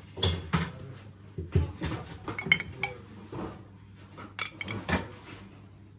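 A spoon clinking against a dish while pizza sauce is spooned out and spread on the dough: a series of short, sharp clinks at uneven intervals.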